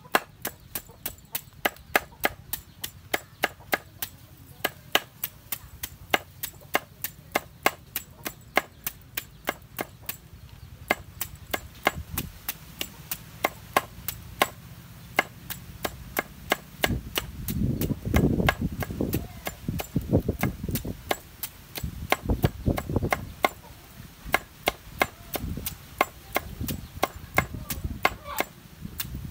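A knife chopping against a wooden cutting board in a steady rhythm, about three sharp strokes a second, with a louder low rustling about two-thirds of the way through.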